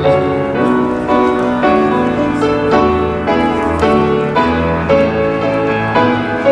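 Piano playing a slow piece, with chords struck about once or twice a second and left to ring.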